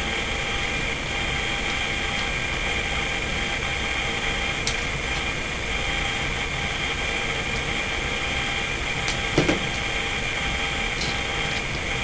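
Steady whirring hum and hiss with a few faint whining tones, like a fan or motor running in the background. It is broken by light clicks of small wires and a plastic electrical box being handled on a bench, and one brief louder knock about nine and a half seconds in.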